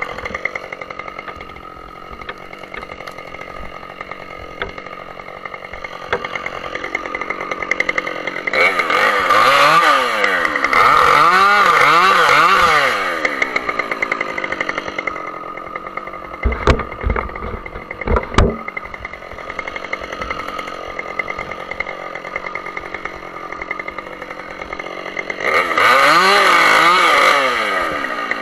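Two-stroke Husqvarna chainsaw idling, then revved up twice into cuts, its pitch wavering under load about a third of the way in and again near the end. Two sharp knocks come between the cuts.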